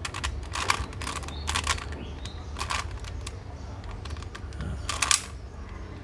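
A plastic Latch Cube puzzle being turned by hand: a run of irregular clicks and clacks as its layers are twisted, the loudest about five seconds in.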